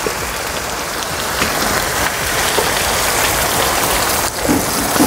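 Chopped tomato, onion and chile sizzling steadily in hot oil in a frying pan.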